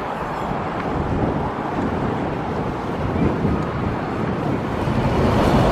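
Wind buffeting the microphone outdoors, a steady rushing noise heaviest in the low end.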